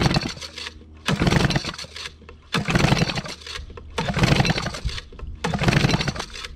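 Recoil pull-starter of a Yamaha-built Mariner 8 hp outboard yanked five times, about a second and a half apart, spinning the engine over with the spark plugs out. This is a compression test on the bottom cylinder with a gauge in its plug hole and the throttle held wide open.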